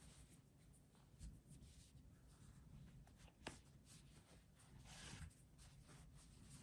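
Near silence with faint rustling of velvet yarn being drawn through stitches and of the plush crocheted toy being handled, and one small click about three and a half seconds in.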